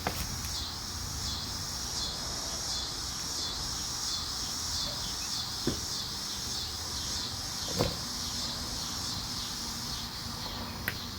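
Insects outside making a steady high, pulsing chorus, with a few faint knocks partway through and near the end.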